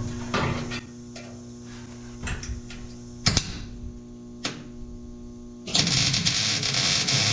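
A few sharp metallic clicks and knocks, then about six seconds in a MIG welder's arc strikes and runs with a steady harsh crackle as another plug weld goes into the sheet-steel bed panel.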